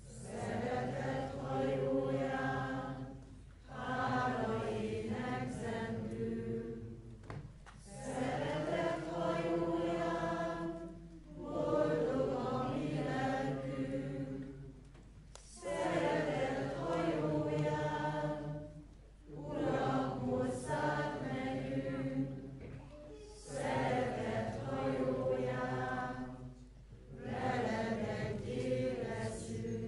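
A hall full of people singing a song together, in sung lines of about three and a half seconds, each followed by a short break.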